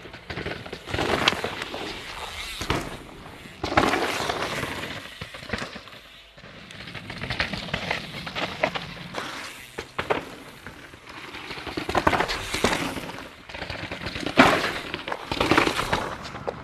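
Mountain bike coming down a rocky dirt trail: tyres crunching over gravel and rock, with sharp knocks and rattles, in uneven surges.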